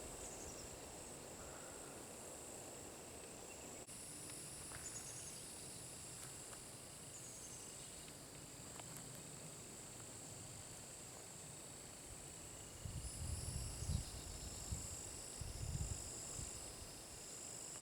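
Faint, steady chorus of insects in summer woods, a high-pitched shrilling that holds throughout. Low rumbles come and go in the last few seconds.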